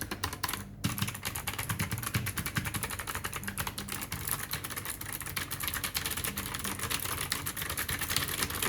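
Rapid typing on a DareU EK520 Optical mechanical keyboard with clicky blue switches: a dense, continuous clatter of key clicks, with a brief pause a little under a second in.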